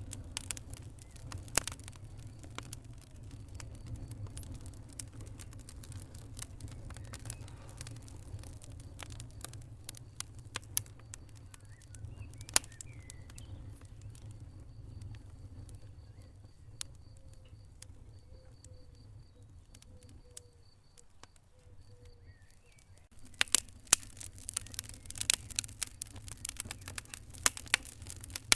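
Wood fire crackling: scattered sharp pops over a low steady rumble, thinning out for a few seconds past the middle, then turning into dense, rapid crackling near the end.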